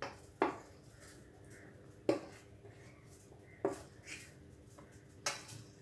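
A metal spoon knocking against a steel bowl while flour is scraped out: about five sharp, irregularly spaced taps, each followed by a short metallic ring.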